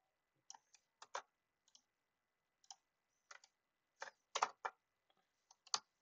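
Scattered clicks of a computer mouse and keyboard, about a dozen at uneven spacing, the loudest a quick cluster about four and a half seconds in.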